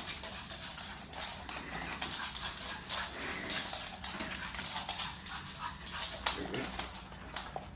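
A pug's claws clicking rapidly on a wooden floor as it runs around.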